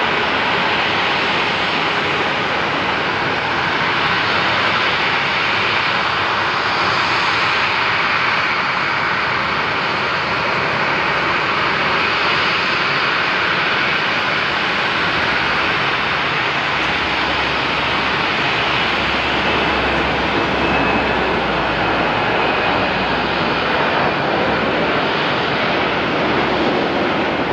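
Jet aircraft engine noise: a loud, steady rush with a faint high whine, a deeper rumble growing a little past the middle.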